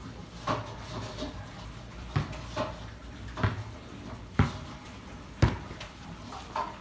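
A basketball bouncing on a concrete court: seven bounces at uneven intervals, roughly a second apart, each a low thud with a short ring, the loudest toward the end.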